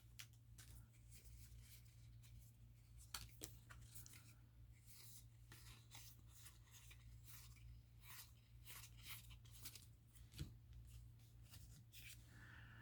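Faint, scattered clicks and rustles of Yu-Gi-Oh! trading cards and a foil booster pack being handled, over a steady low hum; otherwise near silence.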